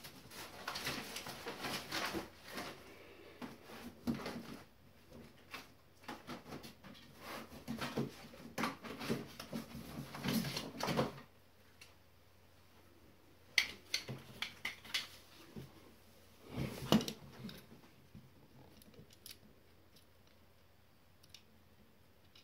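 Small parts and wires being handled on a desk: a run of rustling, scraping and clicking for about ten seconds, then a few separate sharp clicks.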